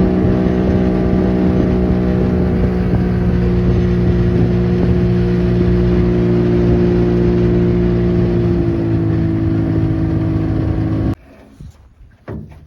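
Boat motor running steadily at speed, dropping slightly in pitch about eight and a half seconds in, then cutting off abruptly near the end.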